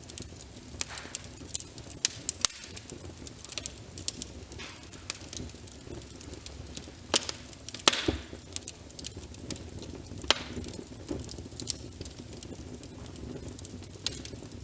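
Wood fire crackling with many irregular sharp pops, over a steady patter of rain on a window. The loudest pops come about two and a half seconds in and around eight seconds in.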